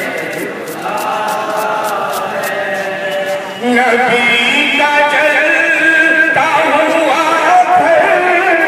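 A man reciting a noha, a mourning lament chanted in a drawn-out melody, growing much louder about three and a half seconds in.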